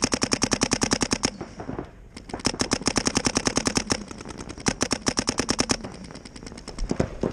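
Paintball marker firing rapid strings of shots, about a dozen a second, in three long bursts with short pauses between them, then a few fainter scattered shots near the end.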